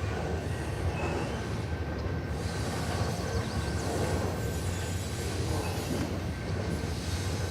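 CN freight train rolling past: a steady rumble of wheels and cars on the rails.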